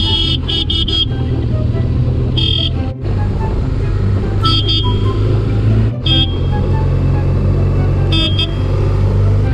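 BMW motorcycle's engine running steadily while its horn is tooted at cattle: a quick run of three or four short beeps at the start, then a single beep about every two seconds.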